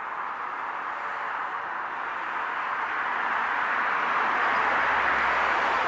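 A road vehicle passing: tyre and road hiss that swells to its loudest about five seconds in, with a low engine rumble joining near the peak.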